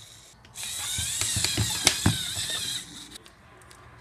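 LEGO Power Functions electric motors whirring through plastic Technic gears, with a wavering whine and a few sharp clicks. It starts about half a second in and stops near three seconds.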